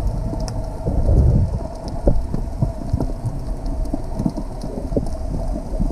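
Underwater ambience picked up by a camera in its housing: a steady low rumble of moving water, with many scattered clicks and crackles throughout.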